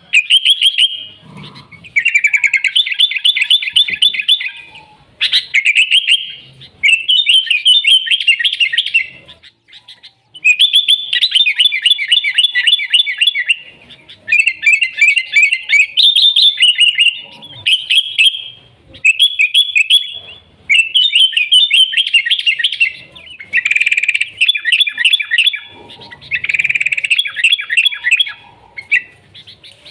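Sooty-headed bulbul (kutilang) singing steadily: phrase after phrase of rapid, chattering warbled notes, each phrase one to three seconds long with brief pauses between.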